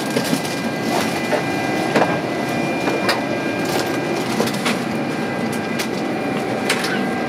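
Airliner cabin noise during boarding: a steady hum with a faint high whine from the aircraft's air system. Scattered knocks and rustling come from a rolling suitcase being pulled down the aisle and the handheld camera brushing against clothing.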